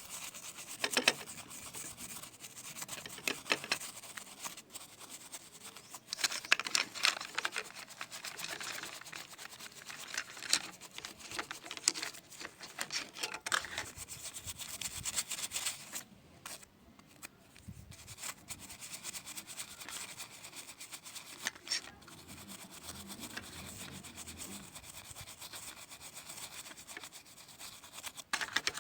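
Irregular rubbing and scraping on a mobile phone being worked on by hand for repair, with scattered sharp clicks.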